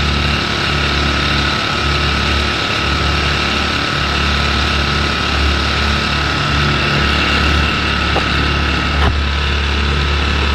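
Small outboard motor on a fishing kayak running steadily with an even, unchanging hum.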